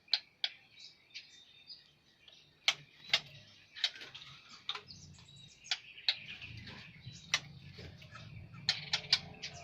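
Pekin robins (red-billed leiothrix) in an aviary giving short, sharp chip calls at irregular intervals, with a few brief chirps between them. A low engine hum rises in the background from about halfway.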